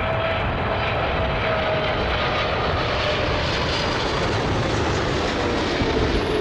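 Boeing 777 jet engines running on final approach: a steady roar with a faint whine that slowly falls in pitch as the airliner passes, with gusty wind rumbling on the microphone.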